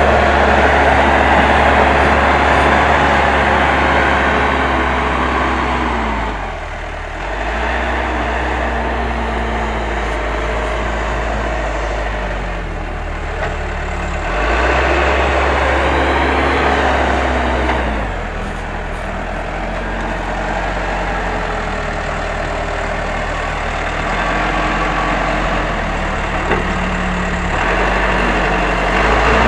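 Case 580M backhoe loader's diesel engine running under working load, its speed dropping and rising again several times as the machine works.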